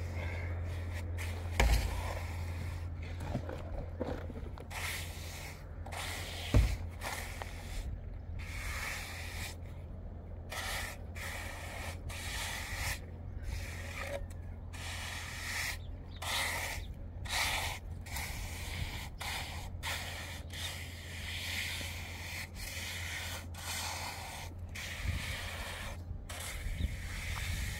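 Trowel scraping and spreading wet cement plaster in repeated short strokes, with two sharp knocks in the first seven seconds. A steady low hum runs underneath.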